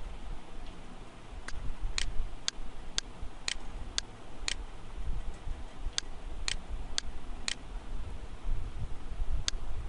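Sharp clicks at an even pace of about two a second, pausing twice, over a steady low hum.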